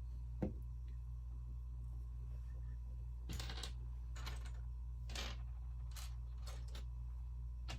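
Lego plastic pieces clicking and clattering as they are handled and pressed together: a scattering of short, light clicks, a few grouped close together.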